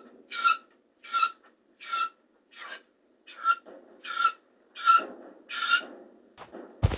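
Rhythmic rasping, scratching strokes, about one and a half a second, each with a faint squeak in it, a comic sound effect laid over a pheasant's movements; a deep thump comes in near the end.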